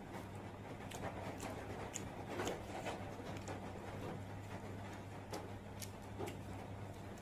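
Scattered small clicks and smacks of someone eating a meal, irregular and a second or so apart, over a steady low hum.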